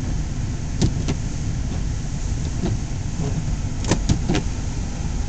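A car driving on snowy roads, heard from inside the cabin as a steady low rumble of engine and road noise. A few short sharp clicks break through: two about a second in and three in quick succession about four seconds in.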